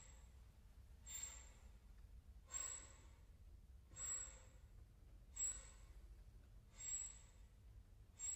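Soft, airy, breath-like puffs from a contemporary chamber ensemble, repeating about every second and a half like slow breathing, with nothing else sounding between them.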